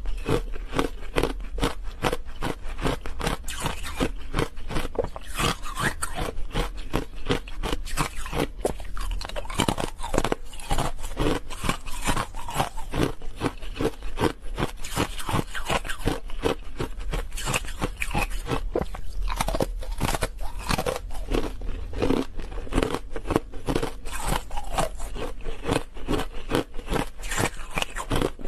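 Ice bars coated in matcha powder being bitten and chewed close to a clip-on microphone: a dense, continuous run of crisp ice cracks and crunches.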